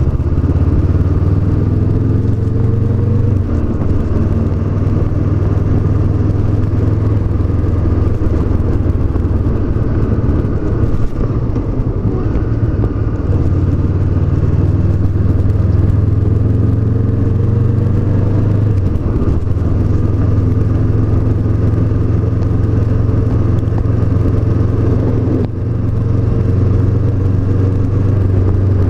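2017 Honda CB500X's 471 cc parallel-twin engine running under way on a ride, its pitch rising and falling with throttle, with a brief drop in level near the end.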